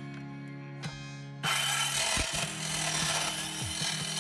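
Hand-held electric circular saw cutting thin sheet metal, a harsh, hissing cutting noise. It falls away for about the first second and a half, then comes back abruptly and carries on.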